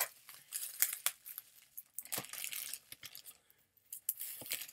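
Plastic wrap and a plastic bag being torn open and crinkled while unwrapping a package, in irregular bursts of rustling and crackling.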